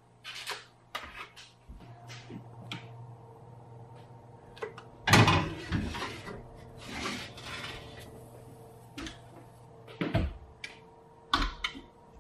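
A metal sheet pan holding a parchment-lined cheesecake being handled on a tiled counter with paper rustling, then set onto the oven rack with a loud metal clatter about five seconds in. Two sharp knocks near the end as the oven door is shut.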